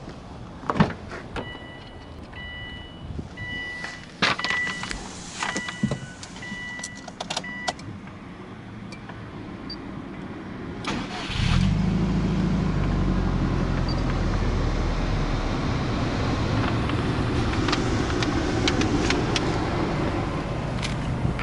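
Subaru Impreza WRX STI being started: first clicks and a dashboard warning chime beeping in short tones, then about eleven seconds in the starter cranks briefly and the turbocharged flat-four boxer engine catches. It settles into a steady, fast cold idle that eases down slightly a few seconds later.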